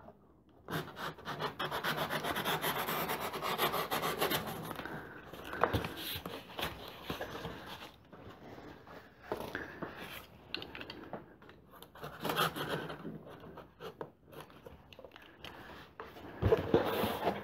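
A knife sawing through the corrugated cardboard of a battery box: a fast, rasping scrape for several seconds starting about a second in. Quieter intermittent scraping and handling of the cardboard follows, with another short burst of cutting later and a knock near the end.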